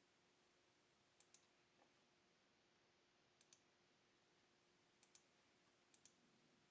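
Near silence, with a faint computer mouse double-clicking four times: pairs of short clicks about a second and a half apart.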